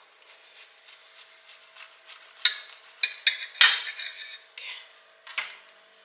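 Dishes and cutlery clinking: a run of small light ticks, then a few louder clatters in the middle, over a faint steady hum.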